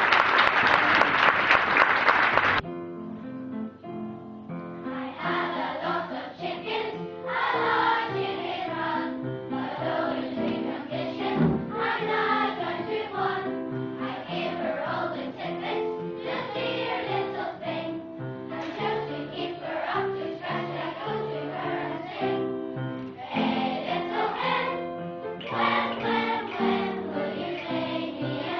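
A burst of clapping for the first two or three seconds, then a children's choir singing a song together.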